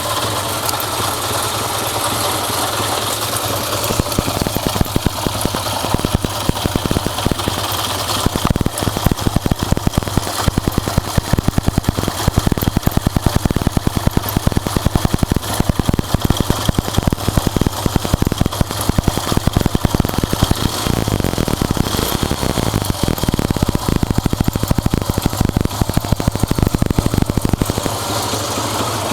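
Honda Benly CD125K3's air-cooled four-stroke twin engine running at idle. From about four seconds in until near the end, a strong, rapid, even firing beat stands out.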